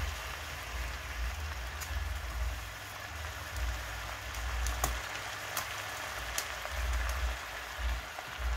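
Fresh spinach leaves sizzling in hot oil in a frying pan, a steady hiss, with a few light clicks as a spatula turns the leaves.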